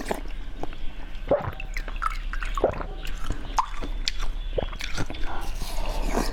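Water dripping: separate wet plops about once a second, with small clicks in between.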